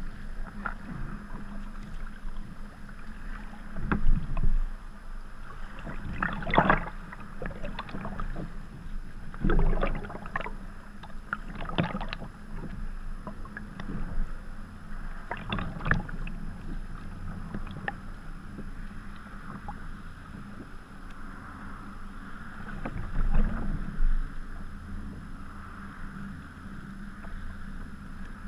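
Sea water slapping and splashing against a sea kayak's hull and paddle in irregular splashes a few seconds apart, over a steady background of wind and water.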